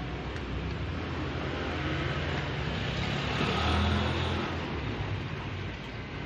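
Road traffic: a steady engine rumble from a motor vehicle that passes close by, loudest about four seconds in.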